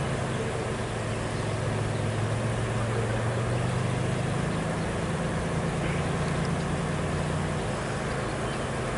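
Car engine idling steadily: a low hum that shifts slightly in pitch about midway and again near the end.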